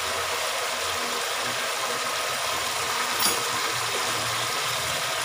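Browned onions sizzling steadily in hot oil in an aluminium pot, with a low steady hum underneath and a brief tick about three seconds in.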